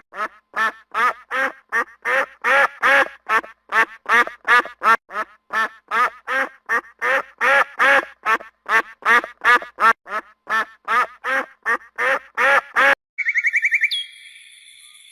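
Duck quacking over and over in a fast, even run, about three quacks a second. Near the end the quacking stops abruptly and a different, high whistling sound begins.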